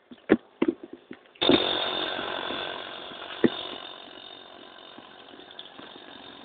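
A few sharp knocks, then a small engine's buzz starts suddenly about a second and a half in and fades away steadily over the next few seconds, with one more knock partway through.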